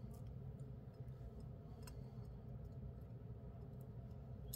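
A few faint metallic ticks of jewellery pliers and a small metal jump ring being handled, over a steady low room hum.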